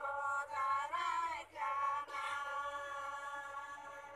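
Chant-like singing in short phrases, settling about halfway in into a long held note that slowly fades.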